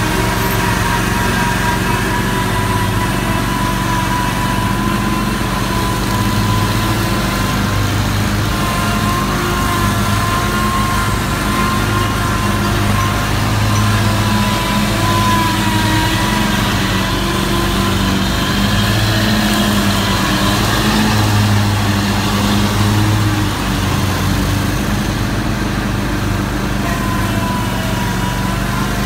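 Scag Cheetah zero-turn mower with a 34-horsepower engine running steadily while cutting grass, a steady high whine over the low engine note.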